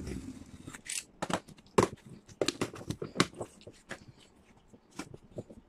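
A box cutter slitting the packing tape on a cardboard shipping box with a scraping hiss, then the cardboard flaps pulled open with a quick run of sharp crackles and knocks in the second to fourth seconds.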